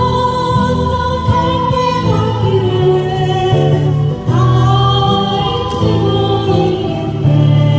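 A group of women singing a slow Korean ballad together in long, held notes, over acoustic guitar accompaniment.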